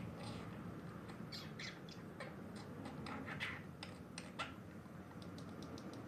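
Budgerigar chattering quietly: a run of short, scratchy chirps starting about a second in and lasting some three seconds, a young bird's half-formed attempts at mimicked talk, followed by a few faint clicks near the end.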